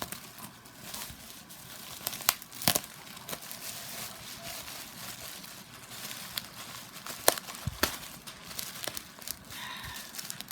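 Sticky tape being peeled off a small cardboard box while the packaging crinkles, with irregular sharp crackles and clicks.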